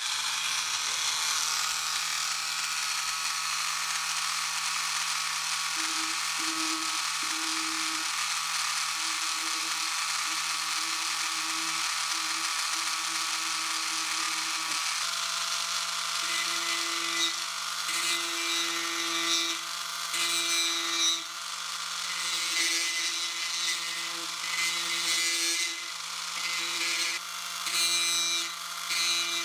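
Handheld rotary tool running at a steady whine. From about halfway through, its rounded burr grinds into shimpaku juniper deadwood, and the sound wavers irregularly in pitch and level as it bites into the wood to carve shari.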